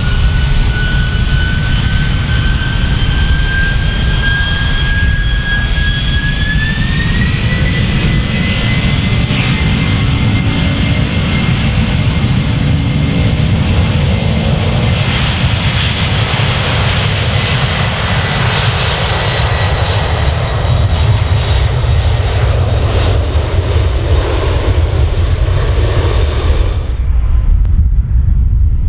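Boeing 767 freighter's turbofan engines spooling up for takeoff, with a loud rumble under a high whine that rises in pitch and then steps up again about six seconds in as the engines reach takeoff power. Near the end the sound cuts abruptly to a duller, more distant jet rumble.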